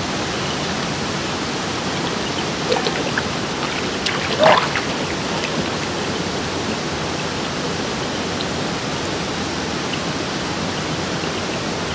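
Steady rush of flowing water in a spring-fed river bathing pool. About four and a half seconds in comes a brief vocal sound from a person.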